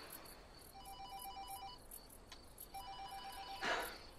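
Mobile phone ringing with an electronic trilling ringtone, two rings about a second long, an incoming call. Crickets chirp steadily behind it, and a brief hiss-like burst comes near the end.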